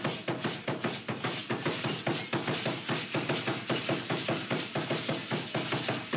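Percussion music: a fast, steady drum beat of about five strikes a second.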